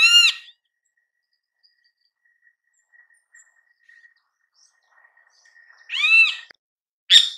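Great kiskadee calling: three loud, harsh calls, one at the start, one about six seconds in and one beginning near the end, each a quick run of arched notes.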